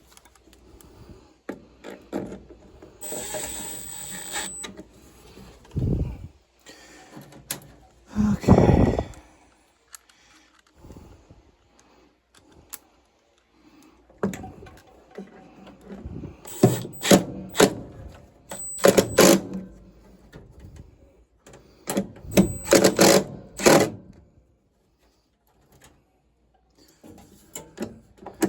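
Hand work on a furnace: metal parts and tools knocking and clinking, with several short bursts of rapid clicking and rattling, most of them between about 16 and 24 seconds in.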